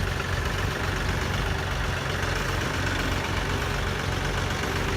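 Engine idling steadily with a low, even rumble.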